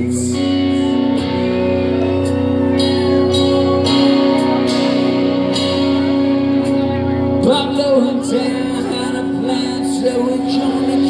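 A rock band playing live: held chords with regular cymbal strikes, and a wavering lead line, voice or guitar, entering about halfway through.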